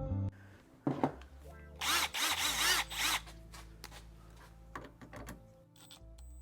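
Cordless power drill/driver run in one burst of about a second and a half, its motor pitch rising and falling, with clicks and knocks of tool handling before and after.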